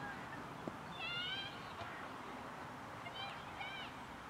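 Birds calling in two short bursts, about a second in and again about three seconds in, each a few high calls close together.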